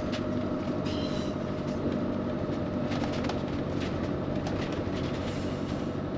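Motorhome on the move, heard from inside the cab: a steady engine and road drone with occasional small clicks and rattles.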